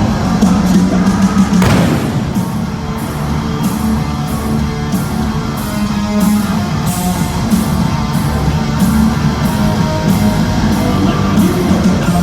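Loud live hard rock band playing with distorted electric guitars and a steady drum beat.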